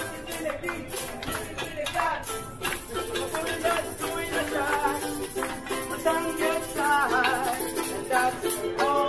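A small live band of cooks playing: a ukulele strummed and maracas shaken, with voices singing along.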